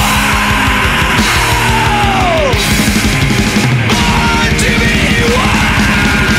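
Heavy metal music with a fast, even drumbeat. About two and a half seconds in, a sustained note slides steeply down in pitch.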